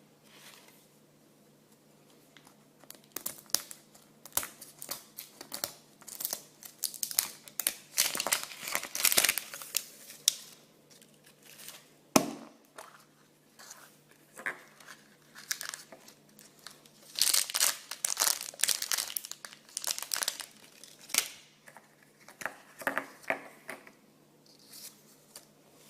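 Crinkly wrapping being crumpled and torn open in repeated bursts as surprise eggs and toys are unwrapped, with one sharp click about halfway through.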